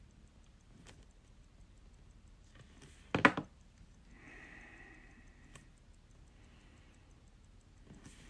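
Faint clicks of small hand tools handling watch parts, with one sharper clack about three seconds in.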